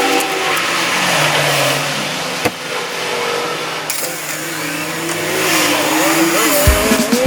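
Vacuum cleaner running steadily with a loud hiss, its pitch wavering and shifting near the end.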